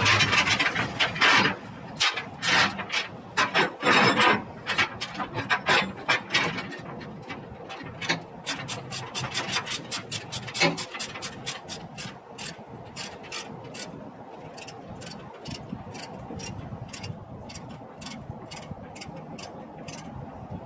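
Ratchet chain binder being cranked to tighten a tie-down chain: rough, louder rasping strokes over the first several seconds, then a steady run of sharp ratchet clicks, about two to three a second.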